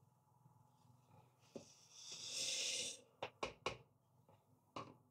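A stirring spoon clicking and knocking against the sides of a plastic jug of lye solution, five light knocks with three in quick succession, and a soft hiss lasting about a second in the middle.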